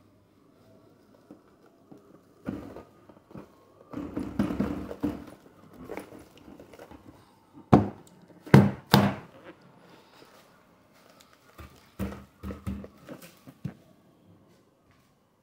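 Household handling noises: a rustling stretch, scattered thumps, and three sharp knocks in quick succession about halfway through, as things are moved and put down in a small room.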